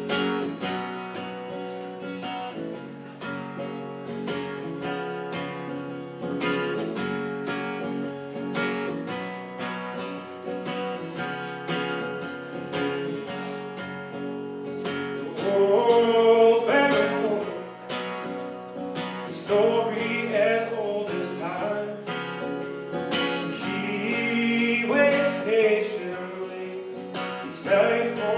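Acoustic guitar strummed and picked as a song's intro. About halfway through, a man starts singing over it.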